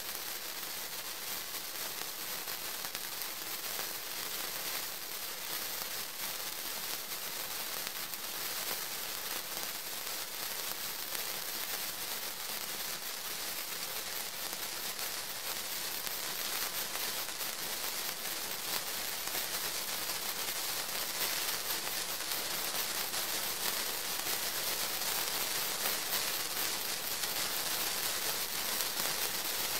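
Two Maxsem 0784S star-shaped wire sparklers burning with a steady crackling hiss of fine sparks, growing slightly louder towards the end.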